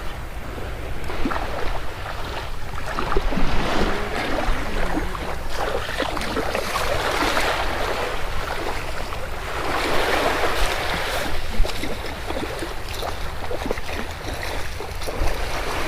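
Ocean surf washing up the beach in repeated rushes, about 3, 7 and 10 seconds in, over a steady rumble of wind on the microphone.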